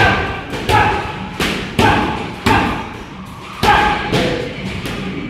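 Gloved punches landing on a large round padded punch target held by a trainer. There are about eight sharp thumps at an uneven pace, some coming in quick pairs.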